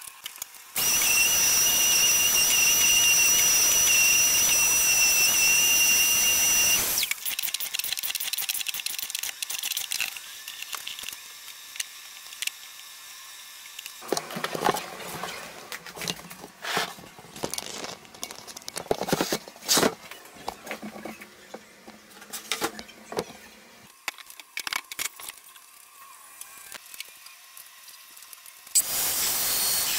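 A shop power-tool motor runs for about six seconds with a steady high whine. Then come scattered knocks, scrapes and clicks of boards and tools being handled. Near the end a workshop machine starts up with a steady hiss.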